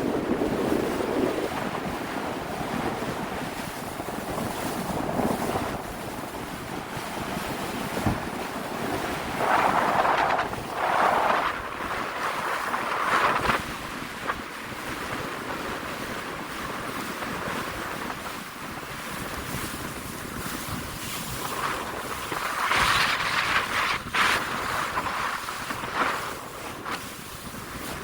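Strong wind buffeting the microphone over the rush of sea surf. The rushing swells louder twice, about a third of the way in and again near the end.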